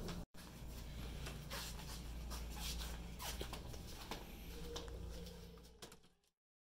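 Quiet rustling and scattered light clicks of a handheld camera being carried, with soft footsteps in flip-flops on carpet, over a steady low room hum. It fades out and cuts to silence near the end.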